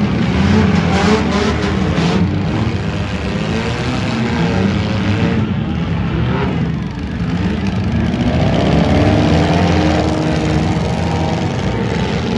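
V8 demolition derby cars' engines revving and running under load, the pitch rising and falling again and again. A few short, sharp knocks come in the first two seconds.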